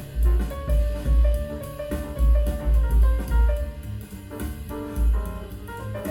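Instrumental music with a jazz feel, held melodic notes over strong, repeated deep bass notes, played back through Fyne Audio F700 loudspeakers and picked up by a microphone in the room.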